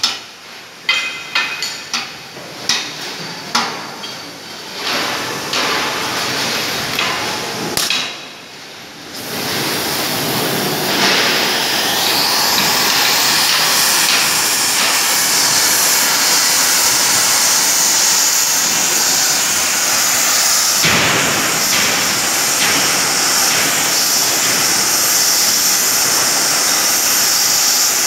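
Hammer blows ringing on a steel wagon bogie, about one a second, for the first eight seconds. Then, from about ten seconds in, a gas cutting torch hisses loudly and steadily against the bogie, breaking off briefly a little past twenty seconds.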